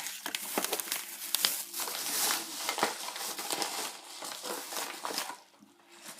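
Packaging crinkling and rustling as it is handled, with many small clicks; it dies down about five seconds in.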